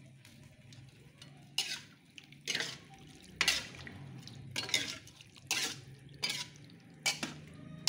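A spatula scraping and stirring through a pan of soupy vegetable stew, about seven strokes at roughly one a second, starting about a second and a half in, over a low steady hum.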